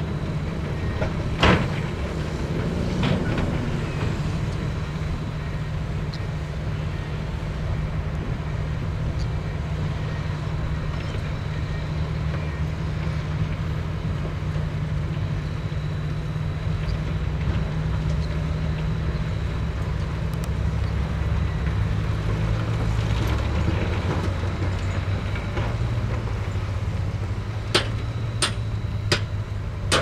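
Heavy earthmoving machinery's diesel engine running steadily, its pitch shifting a little about two-thirds of the way through. A few sharp knocks come near the start and three close together near the end.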